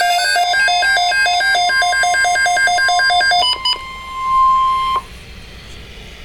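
A fast electronic beeping melody, quick notes stepping between two pitches like an alarm-clock chime, stops about three and a half seconds in. A single steady alert tone takes over, swells, and cuts off sharply a little over a second later.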